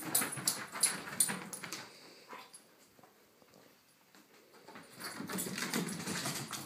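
Basset hound scrambling after a laser dot, paws and claws scrabbling across the rug and floor in two bouts: one at the start and one about five seconds in.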